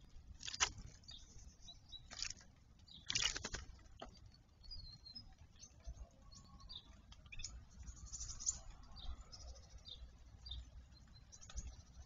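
A young blackbird bathing in a shallow water bowl: short bursts of splashing and wing-fluttering in the water, the loudest about three seconds in, with smaller splashes later. Faint high bird chirps run through the background.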